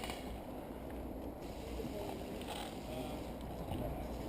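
Steady low rumble of outdoor noise on a body-worn action camera's microphone, with faint distant voices.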